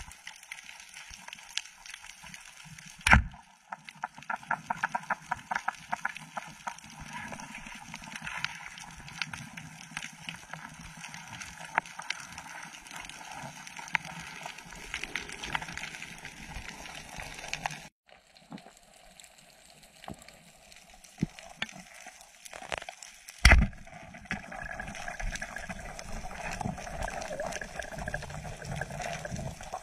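Underwater: a speargun fires with one sharp crack about three seconds in, followed by a quick run of clicks, over a steady crackle of small clicks from the reef. A second sharp knock comes about twenty-three seconds in.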